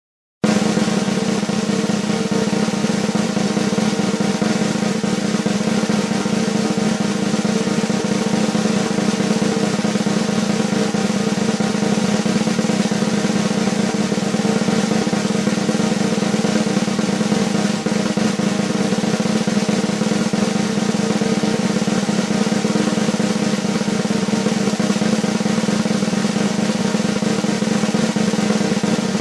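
Drum roll, a fast continuous roll played evenly at a steady level with no swell or closing hit, starting about half a second in.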